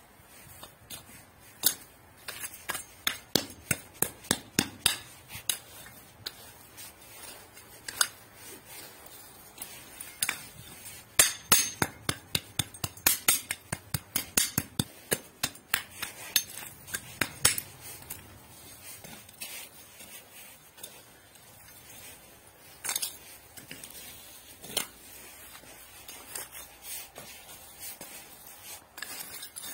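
Small metal hand trowel digging into stony, gravelly soil: runs of sharp clinks and scrapes as the blade strikes stones and gravel, several per second, thinning to a few single strikes near the end.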